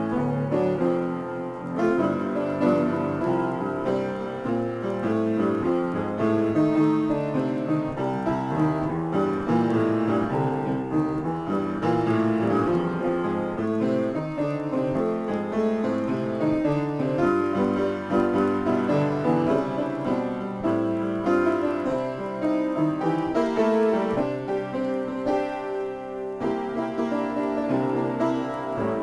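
Solo upright piano played continuously in a free improvisation: busy runs and chords in the middle and low register, at an even loudness.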